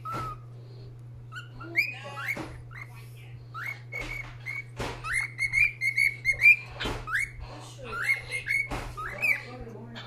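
Young cockatiel in the early stages of learning to whistle: short whistled notes, many gliding upward. A quick run of repeated notes comes a little after the middle, and a few sharp clicks break in between.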